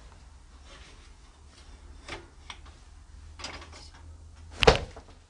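Cups and a glass handled on a wire dish rack over a stainless steel sink: a few light clinks, then one louder knock near the end, over a low steady hum.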